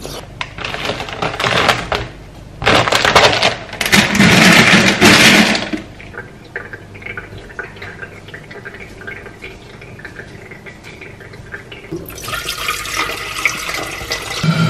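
Water running in three loud gushes in the first six seconds, then a quieter stretch, then from about twelve seconds in, water poured from a plastic filter jug into an electric kettle, the pitch rising as the kettle fills.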